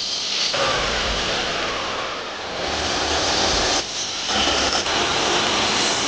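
Belt sander running over pine boards, then a table saw cutting through pine boards, its motor and blade running steadily under the cut.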